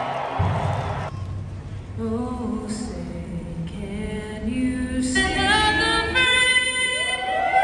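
A woman singing solo, slowly, with long held notes that climb to a sustained high note near the end.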